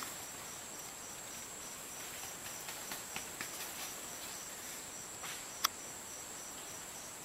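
Insects calling: a steady high-pitched buzz with a fainter chirp repeating about three times a second. A few soft clicks come midway, and one sharp click follows about five and a half seconds in.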